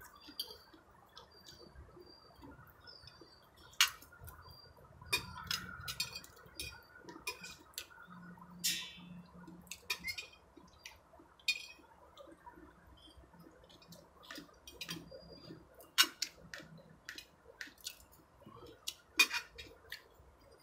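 Scattered sharp clicks and clinks of cutlery on a ceramic plate and of shellfish being handled at the table, a few of them louder knocks.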